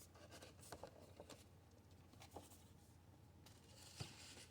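Faint handling noise from toy packaging: soft clicks and rustles, with one sharper tap about four seconds in.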